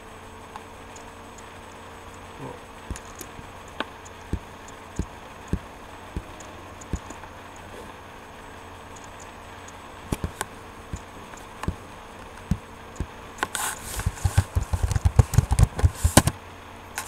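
Scattered single clicks over a steady low hum, then a quick run of knocks and rattles, about three seconds long, near the end.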